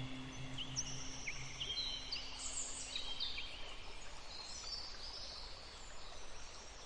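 Several birds chirping and whistling in short overlapping calls over a soft outdoor hiss. A low held tone underneath fades out about three seconds in.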